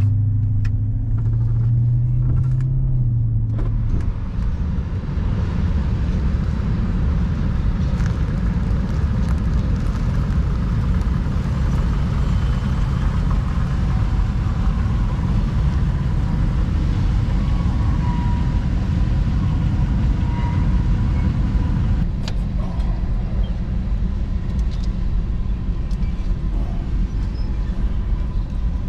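A vehicle being driven: a clear engine note in the first few seconds, then a steady low rumble of engine and road noise.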